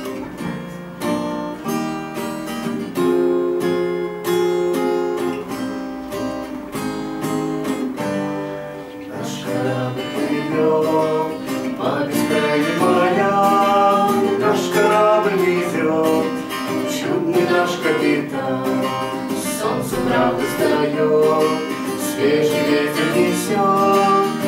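Acoustic guitar strummed as the introduction to a song. A woman's singing voice joins about ten seconds in and carries on over the strumming.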